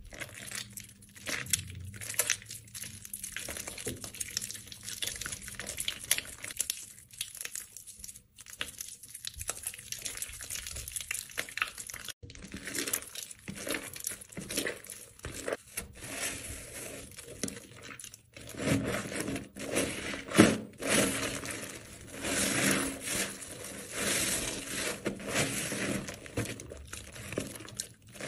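Hands crushing and squeezing a waterlogged, mushy bar of soap, a dense crackling as the soft soap crumbles and breaks apart. It grows louder about two-thirds of the way through as the soap is worked into foamy lather.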